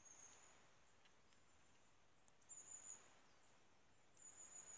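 Faint, very high, thin bird calls: three short notes about two seconds apart over a quiet background hiss, with a small sharp click between the first and second.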